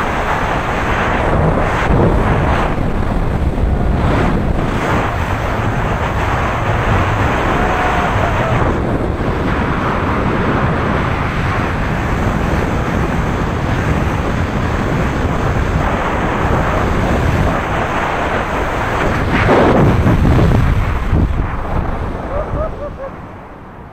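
Freefall wind rushing over the camera microphone during a tandem skydive, steady and loud. Near the end it dies away as the parachute opens.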